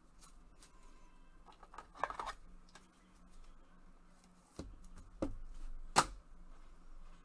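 Trading card and clear plastic card holder handled at the table: a short rustle about two seconds in, then three sharp clicks and taps, the loudest about six seconds in.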